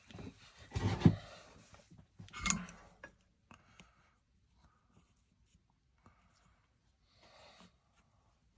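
Handling noise from small repair work: a few short rubbing and scraping sounds of hands, wires and tools moving on a rubber work mat, the loudest about a second in. Then near quiet while the soldering iron is held to the circuit board.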